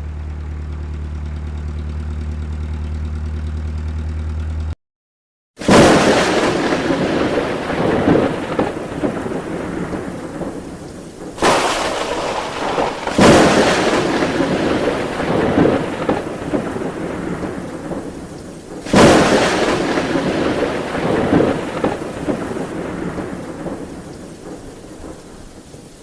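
A heavy engine idling steadily, cut off abruptly. Then a run of loud rumbling crashes, four of them starting suddenly and each fading over a few seconds.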